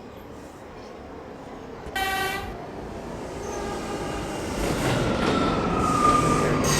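New York City subway train: a short horn toot about two seconds in, then rail rumble that grows louder, with a steady high whine over it.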